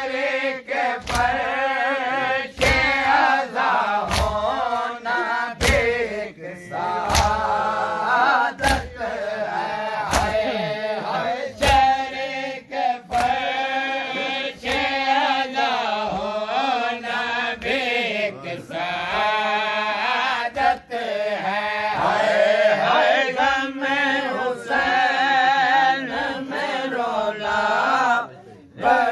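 Men chanting a Shia nauha, a lament for Imam Husain, in a wavering sung voice. Sharp chest-beating (matam) slaps fall in time with it, about one every one and a half seconds.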